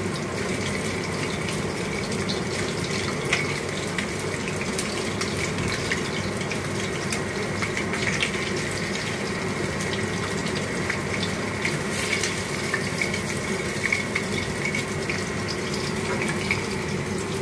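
Masala-coated fish pieces sizzling steadily in hot oil in a kadai, with scattered small crackles and spits, as a wooden spatula turns them over to fry the second side.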